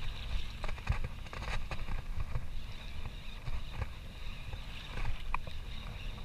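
Small boat on choppy open water: a steady low rumble of wind on the microphone with water lapping and splashing, a few light knocks, and a brief high squeak about five seconds in.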